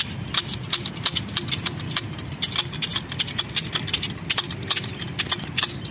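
Manual hedge shears snipping through soft leafy ground cover, the steel blades clicking shut several times a second in an uneven rhythm as two pairs work at once, over a steady low hum.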